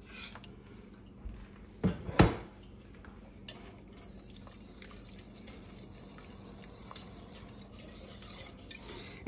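Wire whisk stirring thick Alfredo sauce in a stainless steel pot, with two sharp metal clanks close together about two seconds in, then quiet whisking.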